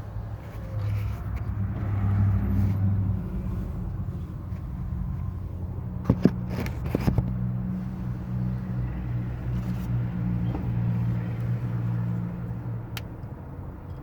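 A motor vehicle's engine running with a steady low hum that swells for a couple of seconds and eases off near the end. A few sharp clicks sound about six to seven seconds in.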